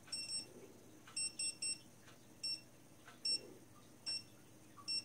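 Dogtrace D-fence 1001 electronic fence collar receiver beeping: short high electronic beeps, three in quick succession about a second in, then single beeps spaced almost a second apart. This slower beeping is the collar's correction-zone signal, as opposed to the rapid beeping it gives in the warning zone.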